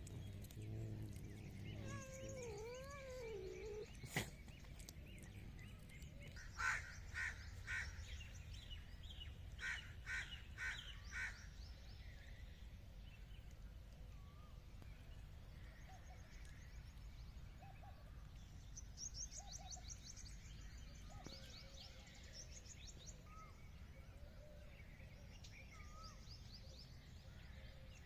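Faint outdoor ambience with a crow cawing in two short series, three caws about 7 s in and four more around 10 s, and small birds chirping later.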